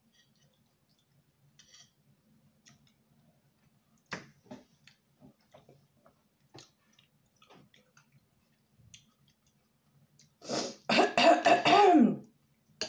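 Soft scattered mouth and utensil clicks of eating, then about ten seconds in a loud throat clearing and cough lasting about two seconds.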